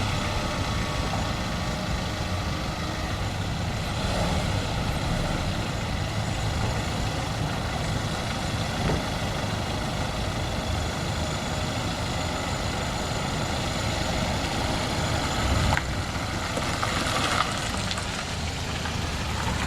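Car engine running steadily with a low hum.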